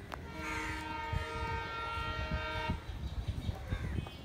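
Diesel locomotive horn of an approaching train: one steady blast about two and a half seconds long, several tones sounding together, then cutting off, over a low rumble.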